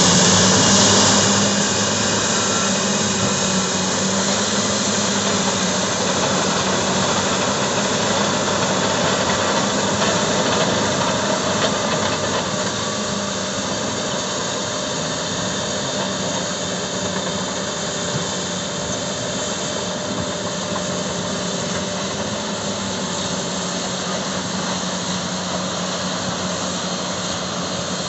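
Caterpillar D10N bulldozer's diesel engine running under load as it pushes dirt, a steady heavy drone. Loudest in the first couple of seconds, then easing a little as the dozer works away.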